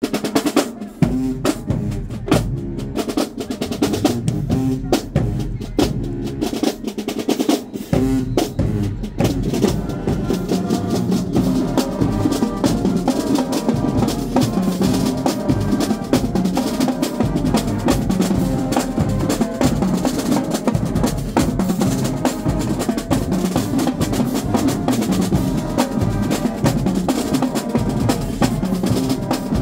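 High school marching band playing in the stands. The drumline of snare and tenor drums plays alone at first, and about ten seconds in the brass, with sousaphones, trumpets and trombones, joins in over the drums.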